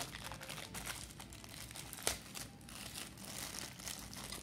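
Thin clear plastic zip bag crinkling as it is handled and opened by hand, with one sharp click about two seconds in.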